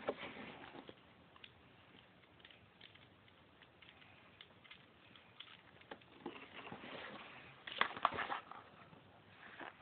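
Handling of an airsoft gun and its red dot sight: faint scattered clicks and rubbing, then a busier run of sharp clicks and rattling about six to eight seconds in.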